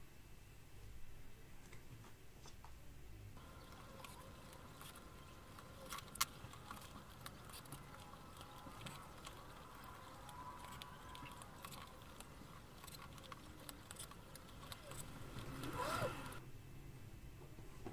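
Quiet handling of leather and thread while a bag is hand-stitched: scattered light taps, rubs and clicks as the hands work the leather panels, with a short squeaky drag, rising and falling in pitch, about sixteen seconds in.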